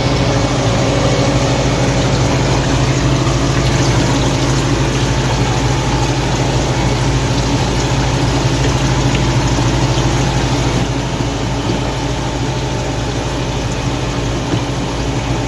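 Hoshizaki cube ice machine running near the end of its freeze cycle: a steady mechanical hum with water running, the machine close to switching into harvest. The sound eases slightly about eleven seconds in.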